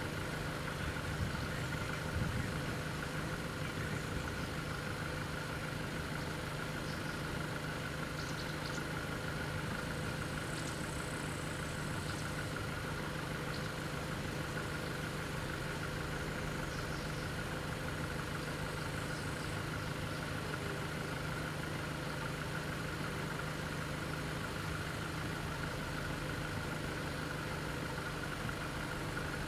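A car engine idling steadily, with a steady high tone running over it.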